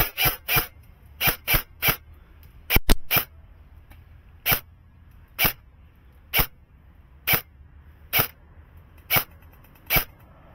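A dog barking repeatedly: a quick run of barks in the first three seconds, then single barks about once a second.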